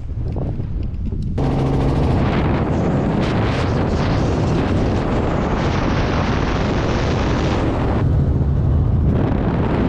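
Wind buffeting the microphone, then about a second and a half in, the loud, steady engine and rotor noise of a helicopter in flight.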